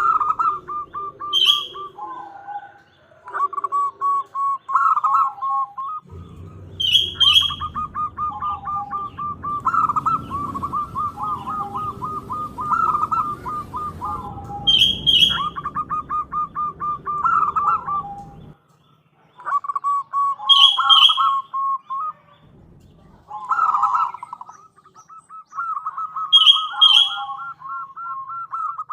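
Zebra dove (perkutut) cooing in quick rolling, pulsed phrases, repeated one after another with short pauses, with sharp high chirps breaking in a few times.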